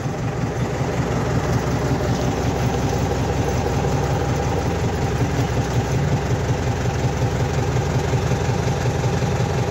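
TTZ LS100 tractor's diesel engine idling steadily, heard from inside the cab. The seller says the engine has been fully overhauled, with the turbocharger and injectors redone.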